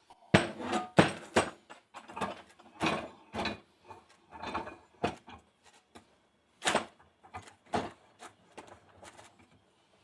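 Metal parts of a small hand tool being worked apart by hand: irregular clicks and clanks, with the sharpest knocks in the first second and about seven seconds in.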